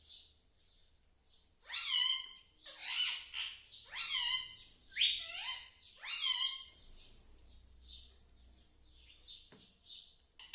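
Pet Indian ringneck parakeet calling: about five short, loud, downward-gliding squawks in quick succession, starting about two seconds in.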